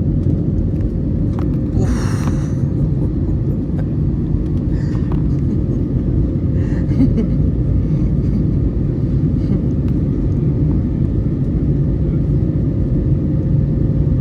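Airbus A321neo cabin noise during climb-out: a loud, steady low rumble of engines and airflow with a faint steady hum above it. A short hiss about two seconds in.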